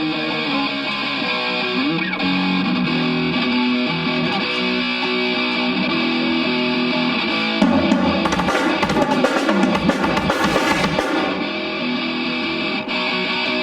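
Distorted electric guitars playing loudly through stage amplifiers at a band sound check. About halfway in, a drum kit joins with a quick run of fast hits for a few seconds, then drops out while the guitars carry on.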